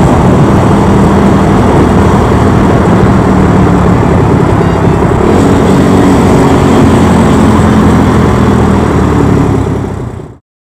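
Small four-stroke single-cylinder motorcycle engine of a Chinese Honda Monkey replica running under way, with a steady hiss over it. The engine note shifts about halfway through as the throttle changes, and the sound fades out quickly just before the end.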